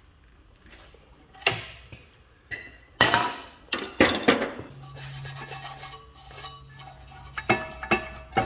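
Metal hand tools and brake parts clanking and clinking as they are handled and set down during brake work, about half a dozen sharp ringing knocks in the first half and lighter clinks near the end, with a faint low hum in between.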